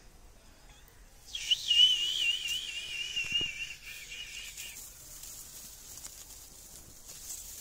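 A high, wavering whistle, starting about a second in and held for about three and a half seconds.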